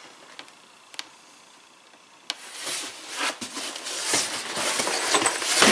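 Packaging of a mud guard set being handled: after a single click about a second in, crinkling and rustling with sharp clicks starts about two seconds in and grows louder toward the end.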